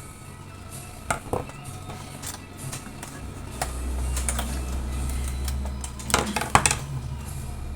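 Sharp clicks and knocks of hard plastic and metal printer parts being handled while an Epson printer's power supply unit is taken out, with a low steady hum rising in about halfway through.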